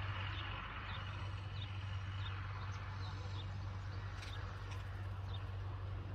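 Red-vented bulbuls chirping: short, high, falling chirps about once or twice a second, over a steady low hum.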